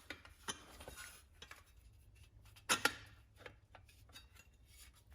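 Scattered light clicks and clinks of small metal parts and hardware being handled during tractor reassembly, with a louder double clink about three seconds in.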